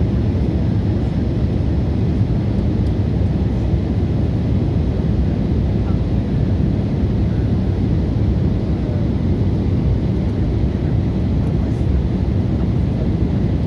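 Loud, steady low rumbling noise with no clear events.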